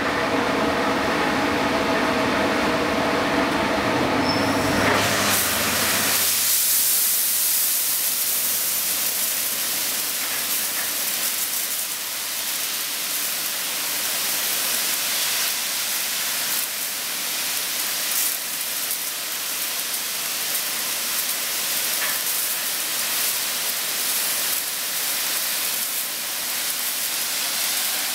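Railway bogie and wheelset washer: a machine hum with several steady tones, then about five seconds in the water jets come on and spray inside the washing cabinet with a steady hiss.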